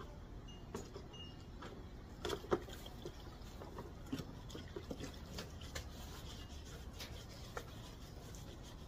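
Faint scrubbing and rubbing on a plastic headlight housing, with water splashing and small scattered knocks as the housing is handled. There is one louder knock about two and a half seconds in.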